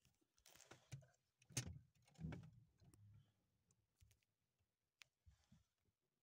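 Near silence broken by faint, scattered rustling and a few sharp clicks, the loudest about one and a half and two and a half seconds in.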